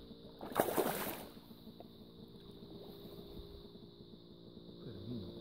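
A hooked tararira thrashing and splashing at the surface of shallow water, one loud splash about half a second in. A steady low hum runs underneath.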